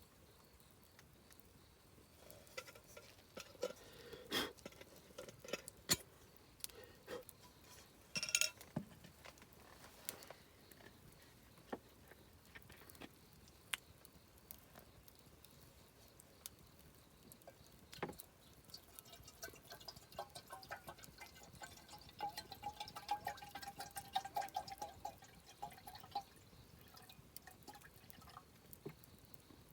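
Wood campfire burning, with scattered sharp crackles and pops, a few louder than the rest. About two-thirds of the way through, a thin, wavering whistle rises from the fire and fades again after several seconds.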